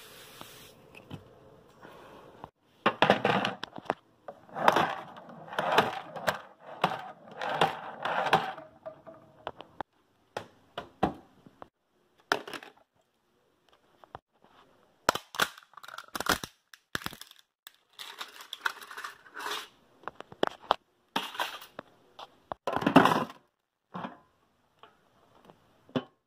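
Hard plastic alarm clock cracking, knocking and crunching under rough handling: a long run of irregular cracks and short crunches, busiest early on and loudest near the end.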